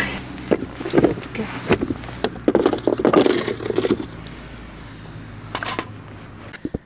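Split firewood pieces being handled by gloved hands: a run of sharp wooden knocks and scraping against a plastic mat, busiest in the first few seconds and then sparser.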